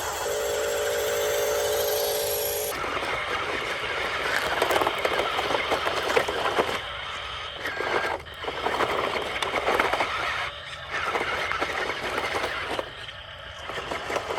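RC excavator's small electric motor whining steadily for the first few seconds, then gravel scraping and pouring in rough bursts separated by short pauses.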